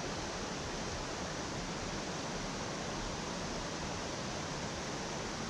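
Steady rushing water: an even, unbroken wash of noise with no distinct events.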